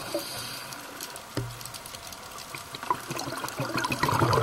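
Underwater sound through a camera housing: a steady crackle of fine clicks, with bubbling water that grows louder over the last second or so.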